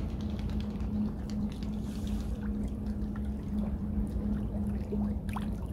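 Steady low wind rumble on the microphone with a constant low hum underneath and a few faint scattered ticks.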